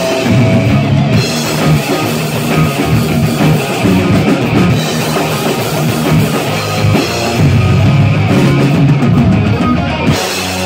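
Live heavy rock band playing loud: electric guitar over a drum kit.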